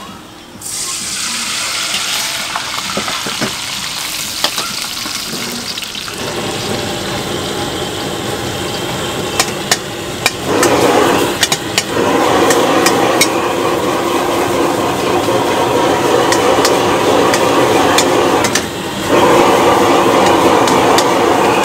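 Food sizzling and frying in a hot wok, starting about half a second in, with a metal ladle clinking and scraping against the pan. From about ten seconds in a much louder rushing noise joins as the burner's flame flares up around the wok, dropping out briefly near the end and then returning.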